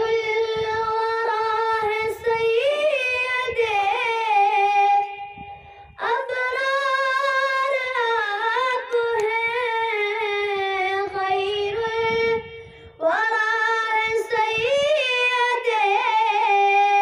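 A boy singing an Urdu naat unaccompanied, in long held, ornamented phrases. There are three phrases, with short breaths for pauses about five and twelve seconds in.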